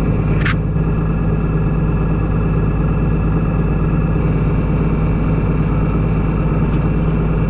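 Farm vehicle engine running steadily at constant speed with an even low drone, and a short rising squeak about half a second in.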